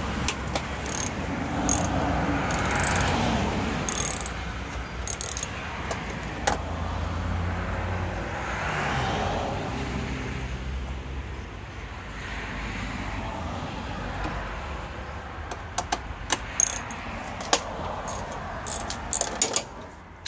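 Road traffic passing: a low rumble with a rush of tyre and engine noise that rises and fades several times. Light metallic clicks and taps, like hand tools or keys, come and go, several close together near the end.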